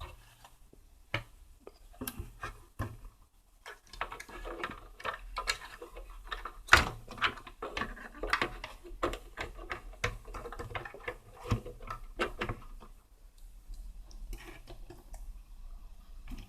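Irregular small clicks, taps and knocks of hands working on the parts of a cassette recorder under repair, fitting a replacement volume control. Sparse at first, then busy from about four seconds in, thinning out near the end.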